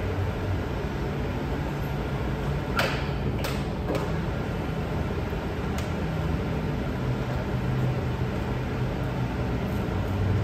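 Steady workshop background noise: a low mechanical hum under a wash of air noise, typical of running fans or machinery. A few sharp clicks or knocks come about three to four seconds in, and another near six seconds.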